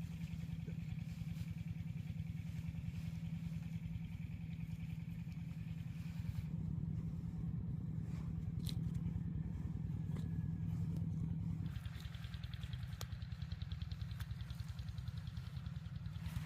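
Small engine running steadily with a rapid, even pulse; its note shifts twice, about six and about twelve seconds in.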